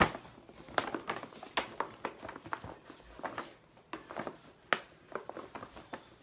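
Handling noise of a paper gift bag and a foam squishy toy: irregular rustles and light knocks, with a couple of sharper clicks, one right at the start and one about four and a half seconds in.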